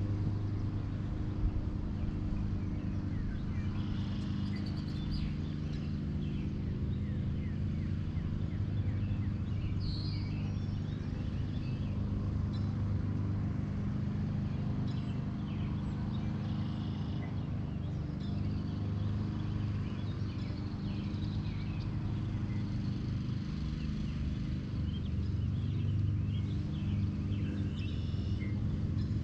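A steady low engine hum that runs on without change, with short bird chirps scattered over it.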